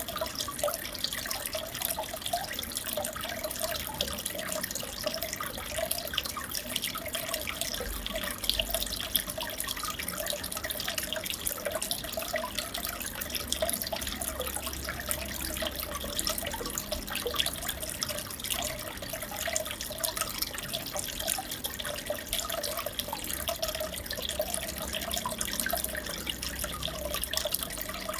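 Aquarium water trickling and bubbling steadily, a dense crackle of small splashes and bubbles that does not change.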